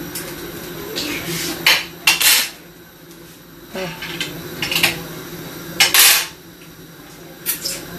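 Cookware and utensils clattering on a kitchen hob and counter: several sharp metal clinks and short scrapes a second or two apart, over a steady low hum.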